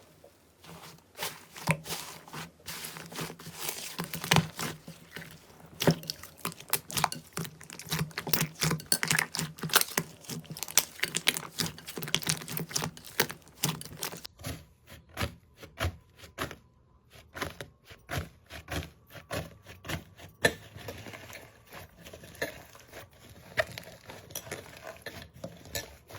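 Slime being squeezed, stretched and poked by hand, giving a dense, irregular run of sticky pops and crackles. The texture of the crackling changes about halfway through.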